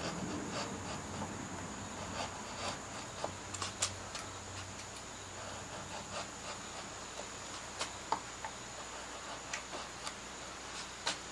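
Shallow carving gouge pushed by hand through soft Alaskan yellow cedar to pare out the background: quiet scraping cuts with scattered small clicks at irregular moments.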